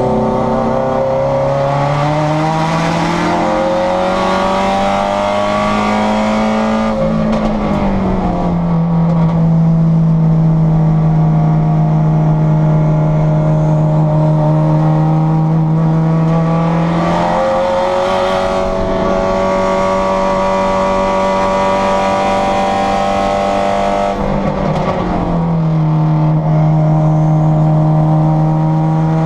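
Subaru STI race car's turbocharged flat-four engine under hard load on track, heard from inside the stripped cabin. Its note climbs and drops at gear changes, about a quarter of the way in and again near the end, and steps up in pitch around the middle.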